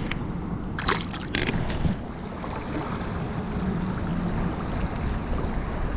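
Wind rushing over the microphone and water around a fishing kayak: a steady noise, with a couple of short sharp sounds about a second in.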